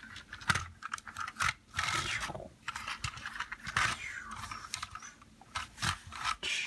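Hands handling a LEGO car model on a cloth desk mat: scratchy scraping and rustling with many light plastic clicks.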